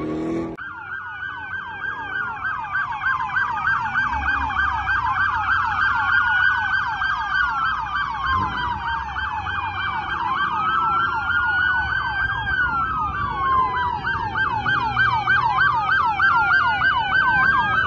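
Several police car sirens sounding at once, slow wails and fast yelps overlapping in many rising and falling sweeps, starting about half a second in.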